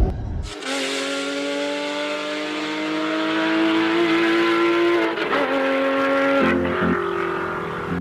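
High-revving sports car engine starting abruptly about half a second in, its pitch climbing slowly for several seconds, wavering, then dropping in steps near the end.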